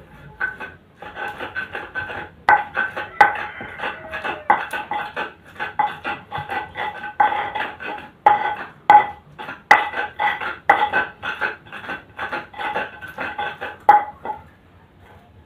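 A pestle grinding and scraping spice paste in an Indonesian cobek mortar, in quick repeated strokes about two to three a second, each with a squeaky ringing scrape; the strokes stop near the end. The paste of turmeric, chilli, garlic and candlenut is being ground fine for peyek batter.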